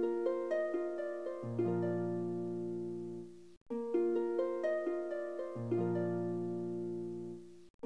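Background music: a short melody of plucked notes over a held bass, repeating about every four seconds with a brief break between repeats.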